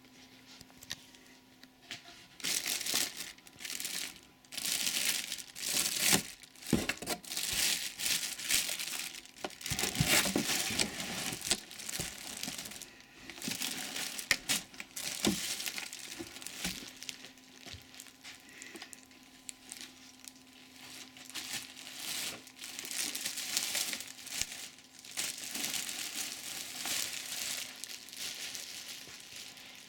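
Clear plastic packaging bag crinkling and rustling in irregular bursts as it is pulled off a new vacuum cleaner, starting a couple of seconds in.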